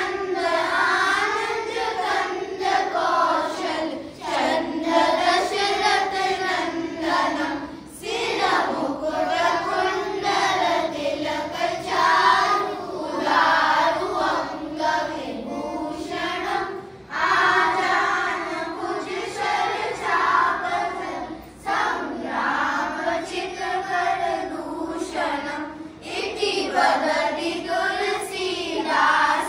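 A group of children singing a Hindi devotional hymn (bhajan) together in unison, phrase after phrase with short breaks for breath.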